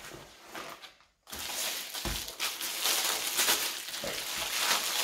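Clear plastic wrapping on a seat pad crinkling and crackling as it is handled and turned over. The crackle starts about a second in, after a brief silent gap, and runs on densely.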